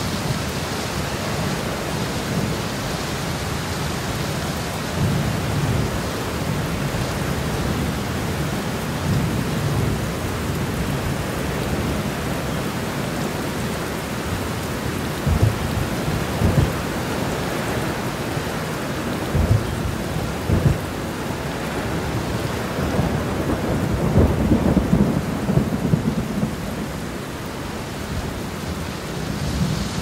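Steady heavy rain with thunder rumbling again and again over it. A few sharper low claps come around the middle, and a longer, louder roll swells about three-quarters through.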